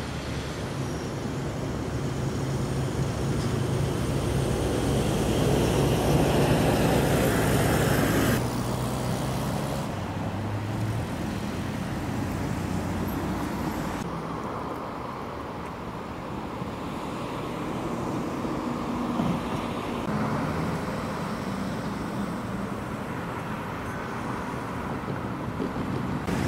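Vienna-built E1 articulated trams running in street traffic, with a low motor hum and wheel and road noise, getting louder to a peak about seven seconds in. The sound changes abruptly several times where separate recordings are cut together.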